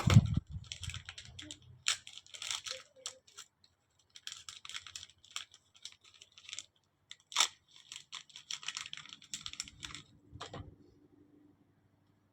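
Rustling and crinkling in three spurts of a few seconds each, with scattered sharp clicks, as small new parts (bolts and O-ring washers) are handled, likely from plastic packaging.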